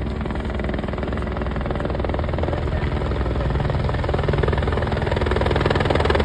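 Helicopter running: a steady rotor chop over a low engine drone, slowly getting louder.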